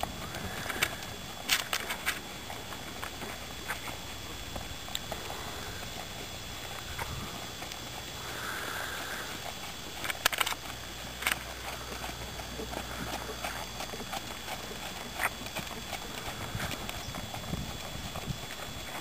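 A ridden horse trotting on a sand arena: hoofbeats in the sand, with occasional sharper clicks.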